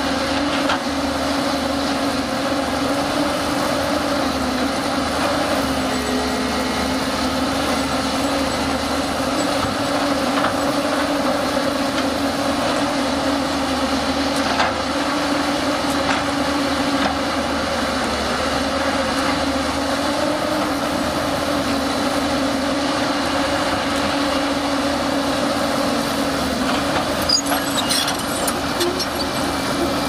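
Diesel engine of a JCB tracked hydraulic excavator running steadily under working load as it digs and swings, with a few short sharp knocks about halfway through and near the end.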